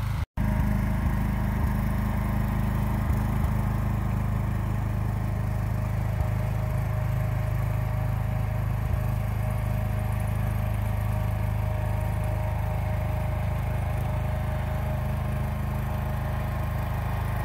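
John Deere garden tractor engine running steadily as the tractor clears snow, a constant low drone that briefly cuts out just after the start.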